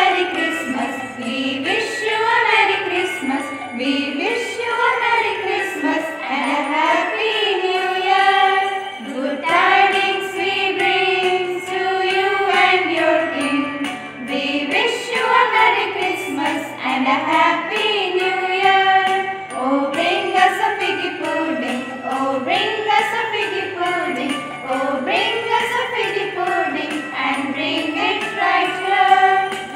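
A Christmas song: a singing voice carries the melody over music, with jingle bells shaken along to the beat.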